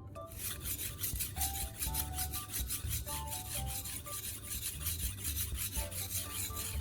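Steel knife blade scraped back and forth on the 800-grit side of a whetstone wet with baking soda paste: a fast, even rhythm of gritty rubbing strokes.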